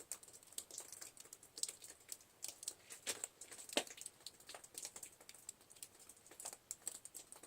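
Heavy wet snow melting at about freezing: faint, irregular ticking and pattering of drips and clumps of snow, with one slightly louder tick near the middle.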